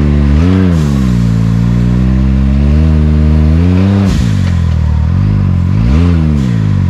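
Side-by-side UTV engine revving up and down under throttle. Its pitch rises and falls several times, and it drops off the throttle briefly about four seconds in before climbing again.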